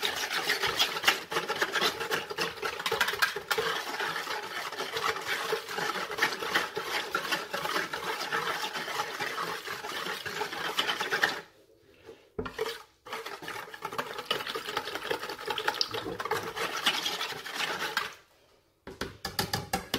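A utensil stirring an oil-and-spice marinade in a bowl: rapid, steady scraping and clattering strokes against the bowl. It stops briefly about eleven seconds in, then starts again, with another short pause near the end.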